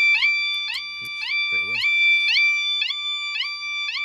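Motorcycle alarm sounding on a Suzuki SV650S: a loud, buzzy electronic beep repeating about three times a second, each beep opening with a quick rising chirp.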